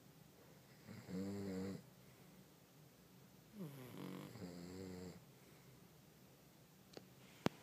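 A pug snoring: a few pitched snores spaced a couple of seconds apart, then a single sharp click near the end.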